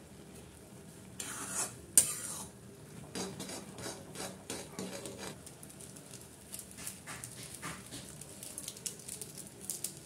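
Steel spatula scraping and stirring Maggi noodles in a metal kadai, in irregular strokes, with a sharp click about two seconds in. Toward the end a foil masala sachet crinkles as it is emptied over the noodles.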